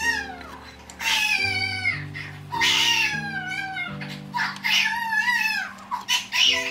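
A young baby crying in a string of high, falling wails, roughly one a second, over background music of sustained low chords.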